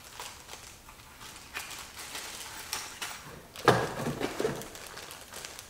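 Plastic packaging rustling and crinkling and a cardboard box being handled, with scattered small clicks of parts being unwrapped. A brief louder burst about two-thirds of the way in has a short voice-like sound in it.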